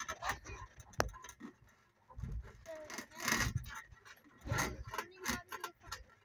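Handling noise of a phone pressed against a trampoline's mesh safety net: rubbing and scraping of the netting, a sharp click about a second in, and several dull thumps.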